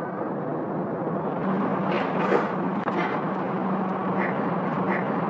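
Steady outdoor background noise with a low, even hum that sets in about one and a half seconds in, and a few faint clicks.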